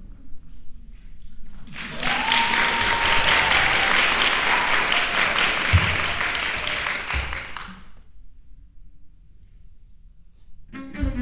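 Audience applauding for about six seconds, starting about two seconds in and dying away, before a cello begins to play right at the end.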